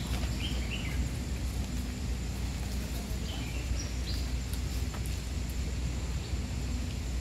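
Steady low outdoor rumble with several short bird chirps scattered through it, and a couple of faint clicks.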